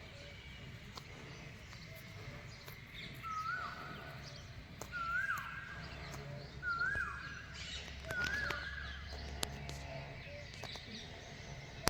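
A bird calling four times, the same short call with a quick upward sweep each time, about every second and a half to two seconds, among fainter chirps from other birds.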